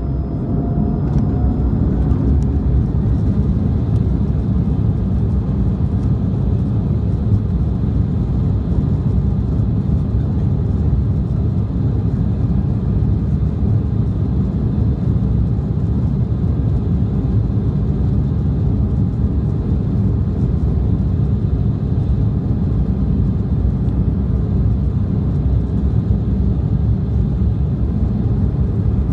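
Airliner's jet engines spooling up to takeoff thrust, with a rising whine about a second in, then a loud, steady rumble of engines and wheels on the runway as the plane accelerates down the runway, heard from inside the cabin.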